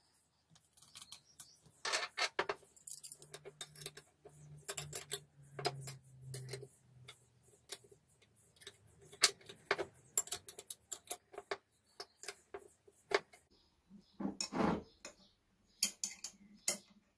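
Small metal parts of a two-wheel tractor clutch being handled and fitted by hand on a steel workbench: irregular light metallic clicks and clinks, with one duller knock about three-quarters of the way through.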